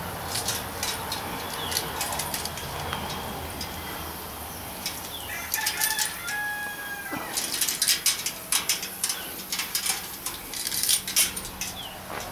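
A bird call with a drawn-out, held tone about five seconds in, lasting well over a second. It is followed by a run of sharp clicks and rattles.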